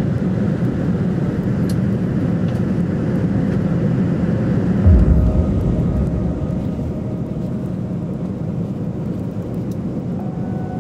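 Steady airliner cabin noise in flight: the rush of the jet engines and airflow heard from a window seat. A brief low thump comes about five seconds in.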